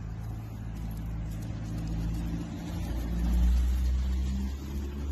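A car engine running with a steady low hum, growing louder about three seconds in and easing off again near the end.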